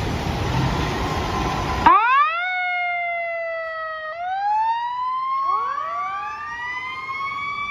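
Fire engine siren wailing: about two seconds in it rises sharply, then slowly falls, then rises again, with more overlapping wails rising in the second half. Before it, a steady rushing noise.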